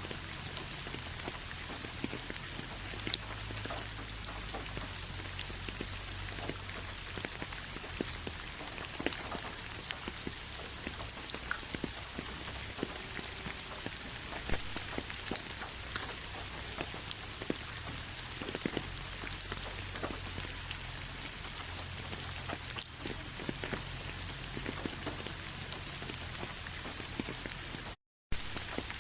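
Steady rain falling, with many individual drops striking a surface as scattered sharp ticks over an even hiss. The sound cuts out to silence for a fraction of a second shortly before the end.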